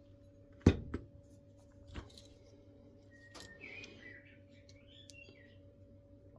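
Small handling sounds from a Daiwa Freams spinning reel as its handle is taken off. There is a sharp click under a second in, then a few lighter taps and faint squeaky rubbing of parts.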